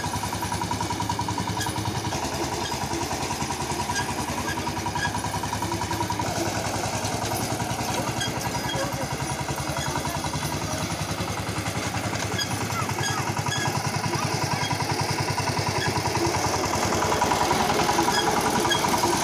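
Single-cylinder diesel engine of a VST Shakti 130 DI power tiller running steadily with a rapid even beat while it drags the beam of a sugarcane crusher round in a circle. It grows louder near the end as the tiller passes close by.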